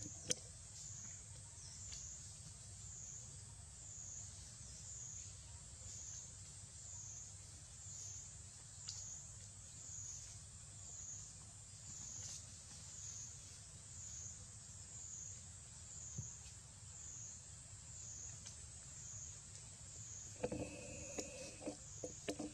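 Steady high-pitched insect chorus pulsing about once a second over a low outdoor rumble. Near the end a monkey gives a short call, followed by a few sharp clicks.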